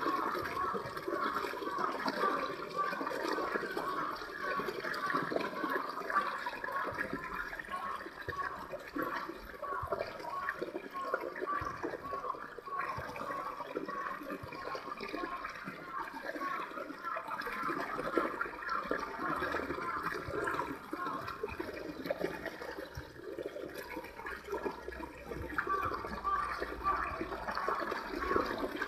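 A small shallow stream flowing over rocks: a steady rushing, splashing water sound.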